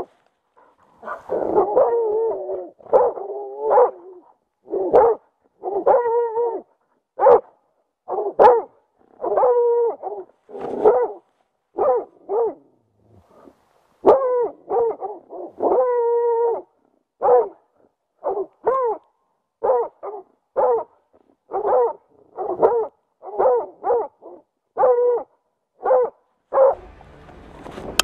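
Plott hound bay-barking at a bear, the standing bark that holds game in place. It gives about two dozen loud, ringing barks in an uneven rhythm, some short and some drawn out to nearly a second, close to the microphone.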